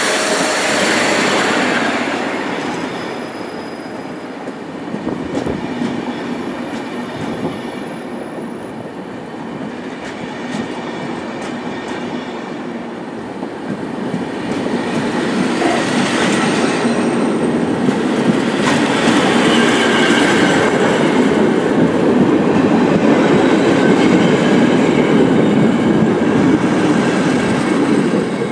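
Passenger coaches of a train hauled by an EP07 electric locomotive rolling past: a steady wheel-on-rail rumble with clicks over the rail joints and a faint high wheel squeal, growing louder about halfway through.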